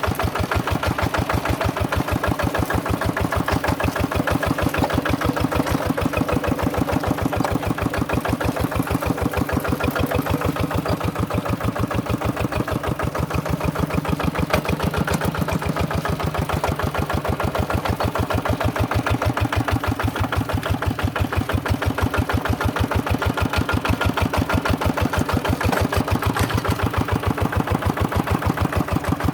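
Tractor engine running steadily with a fast, even pulsing beat.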